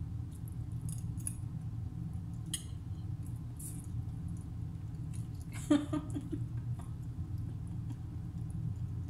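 A person eating with a metal fork from a china plate: light clicks of fork on plate and chewing over a steady low hum, with a brief chuckle a little over halfway through.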